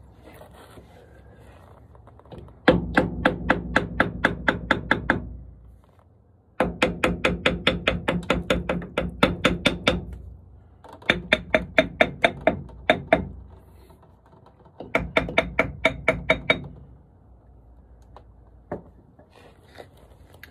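Hammer tapping rapidly on the metal end cover of a Daimler Ferret's epicyclic reduction hub to break it loose from the hub, in four quick runs of ringing strikes at about five a second with short pauses between them.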